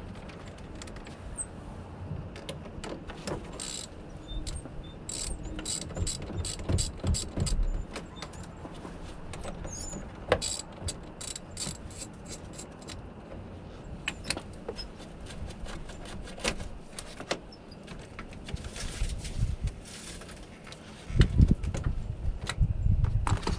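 Scattered metallic clicks and clinks of hand tools and battery terminal clamps being worked loose from the battery posts, with handling noise and a run of heavier thumps near the end.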